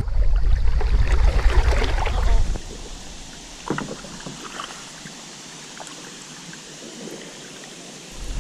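Kayak paddling on a calm river: paddle splashes and water sloshing with a loud low rumble for the first two and a half seconds, then a much quieter stretch of faint water hiss with a single splash or drip near the middle.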